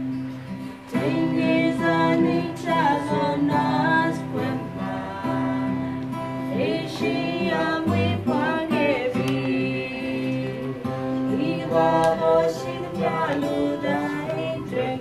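A man and a woman singing a song to a strummed acoustic guitar, the voices coming in about a second in over the guitar chords.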